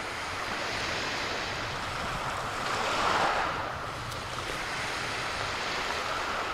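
Lake Superior surf washing onto the shore, mixed with wind. One wave swells louder about three seconds in.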